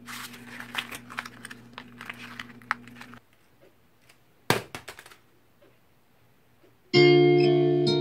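A sheet of paper crumpled by hand, dense crackling for about three seconds, then one short hit as the paper ball drops into a plastic-lined wastebasket. About a second before the end, loud music with sustained chords starts and is the loudest sound.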